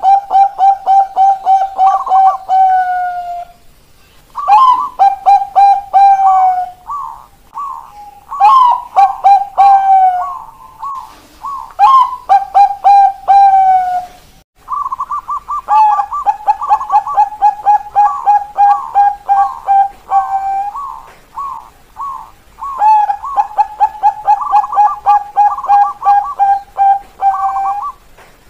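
Bangkok-strain zebra doves (perkutut) singing their rapid staccato "keok kok kok kok" song. Runs of quick, evenly spaced coos follow one another, each lasting a few seconds, with brief pauses between.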